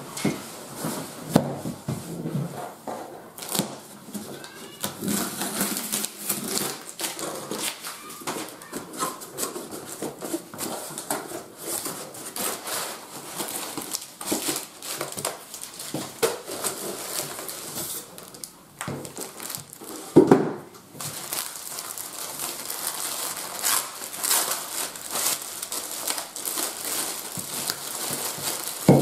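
Unboxing: a cardboard box handled on a wooden table and opened, then bubble wrap and a plastic bag crinkling and rustling as a hand plane is unwrapped. A louder thump comes about two-thirds of the way through.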